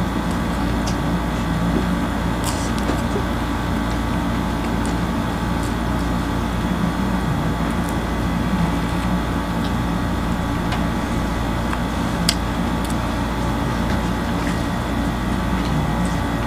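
Steady machine hum made of several held tones, with a few faint sharp clicks and crackles as flatbread is torn and chewed, the sharpest about 12 seconds in.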